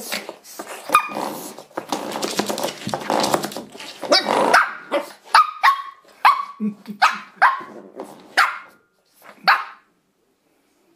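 Shih Tzu puppy barking at a spring door stop. A dense, rough stretch of noise fills the first four seconds, then come about eight short barks in quick succession, which stop about a second before the end.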